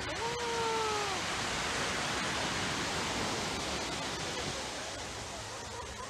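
Surf washing steadily up a sandy, rocky shore. Near the start there is a single drawn-out call, about a second long, that drops in pitch at its end.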